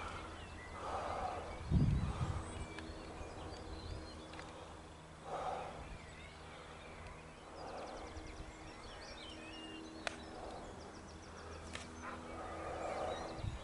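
Quiet outdoor ambience with distant bird calls coming every few seconds, a soft thump about two seconds in, and two sharp clicks in the second half.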